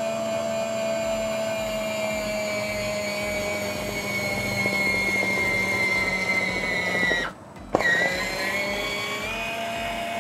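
Small electric motor of a rechargeable portable citrus juicer running steadily with a whine, pressing a half citrus slice on its reamer. About seven seconds in it cuts out for a moment, then with a click starts again, its whine rising.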